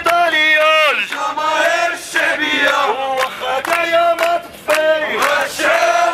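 A man leading protest chants through a handheld megaphone, in short rhythmic shouted phrases, with a crowd chanting along.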